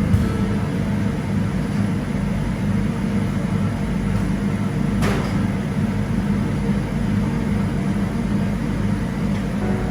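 Steady mechanical rumble and hum, with a single sharp click or clatter about five seconds in.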